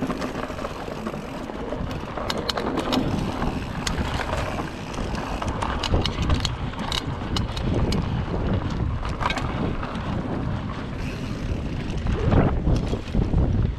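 Wind buffeting the microphone over the rumble of mountain bike tyres rolling on a dirt trail, with scattered sharp clicks and rattles from the bike jolting over bumps.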